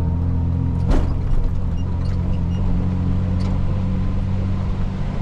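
Car engine running at a steady low drone while driving, with a single sharp knock about a second in.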